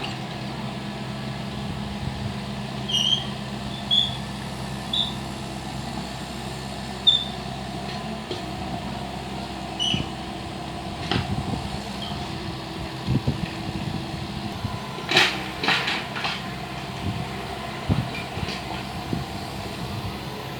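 Excavator's diesel engine running steadily, with a few short high squeaks in the first half and several sharp knocks in the second half.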